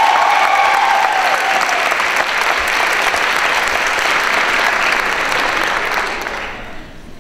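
Audience applauding in a theatre, a dense patter of many hands that dies away about six and a half seconds in.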